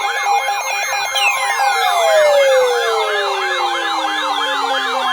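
Electronic warbling siren: a rapid up-and-down sweep about three times a second over a steady alert tone. From about a second in, several tones slide slowly downward in pitch beneath it.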